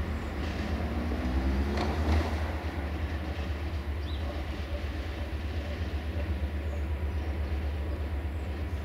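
EGM621 class 65 diesel-electric locomotive approaching from a distance: a steady low engine rumble, with a short rising tone and a brief burst of noise over it about two seconds in.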